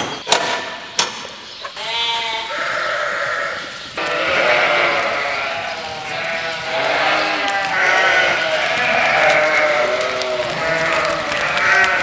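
A flock of ewe lambs bleating, many voices calling over one another without a break. A few sharp knocks come in the first second or so, before the bleating starts.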